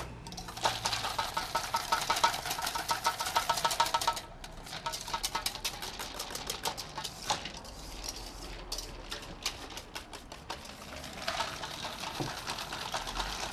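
Wire whisk beating rapidly against a stainless steel mixing bowl, a fast even clatter of metal strokes with a ringing note. The strokes are strongest for the first few seconds, lighter through the middle, and pick up again near the end.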